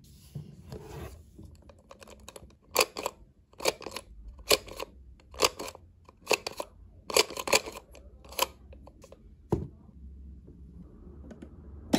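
Plastic Hulk toy figure with a face-changing head being pressed and turned, its mechanism clicking sharply about a dozen times in quick, uneven succession.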